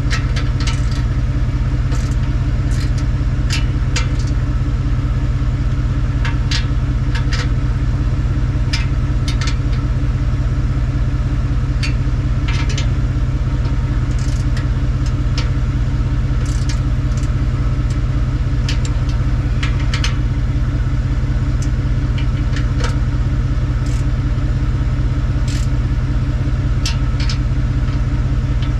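Car engine idling steadily, its exhaust passing through a temporary pipe-connector repair that still leaks some air. Scattered sharp clicks and taps sound over the idle.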